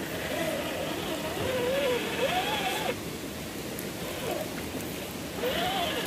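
Electric motor and drivetrain of a Traxxas TRX-4 Defender RC crawler whining, the pitch rising and falling with the throttle over a steady hiss.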